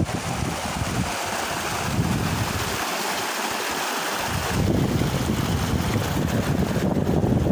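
Wind buffeting the microphone in uneven gusts, a low rumble that drops away briefly about three seconds in and comes back stronger, over a steady rushing hiss.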